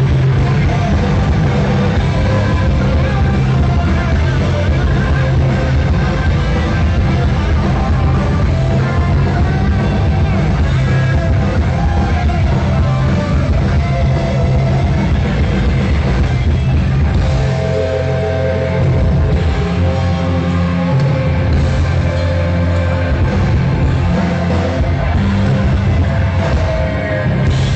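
A live rock band playing loud and heavy, with electric guitar, bass and drums, plus some singing. The deepest bass thins out for a few seconds past the middle.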